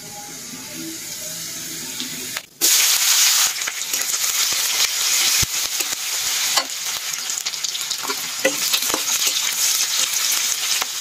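Sliced onions sizzling in hot oil in a kadai for a dal tempering, stirred with a metal spatula that taps and scrapes the pan. The sizzle is faint at first, then turns loud all at once about two and a half seconds in and stays loud.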